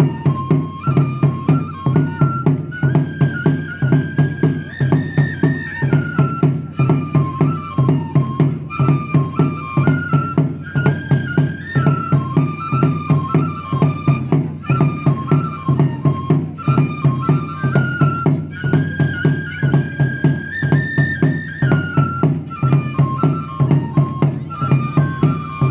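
Japanese taiko drum ensemble playing a fast, steady beat under a high shinobue bamboo flute melody, the flute phrase repeating about every eight seconds.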